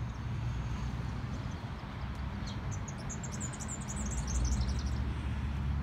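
Wind buffeting the microphone as a steady low rumble that grows stronger about four seconds in, with a small bird chirping a quick run of high notes about three seconds in.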